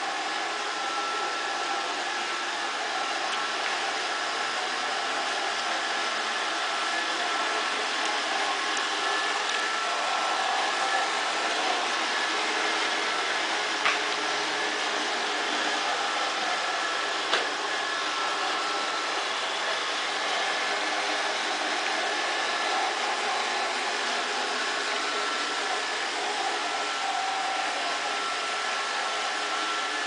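Roomba robot vacuum running: a steady whirring hiss from its vacuum motor and brushes, with a faint steady whine over it. Two short sharp knocks come midway, a few seconds apart.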